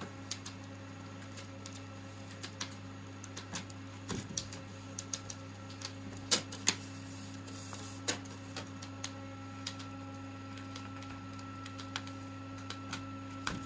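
Licence-plate foil-rolling machine running with a steady low hum, with scattered sharp clicks and knocks as a plate is fed through its roller; the loudest clicks come a little past the middle.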